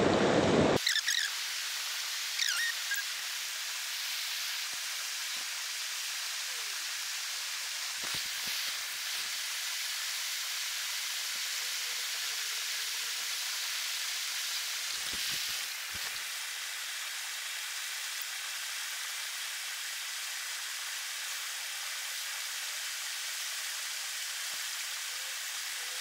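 Steady rush of a river's current, an even hiss of flowing water, with a few faint low bumps about a third of the way in and again a little past halfway.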